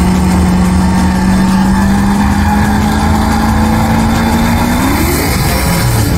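Car engine held at steady revs, then revving up quickly about five seconds in.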